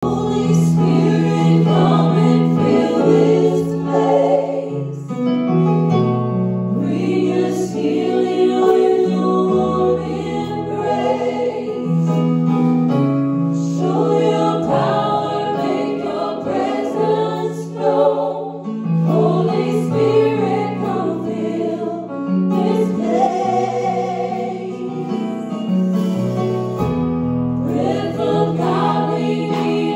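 A small worship group of women's and a man's voices singing a gospel song in harmony through microphones, over sustained electric keyboard chords.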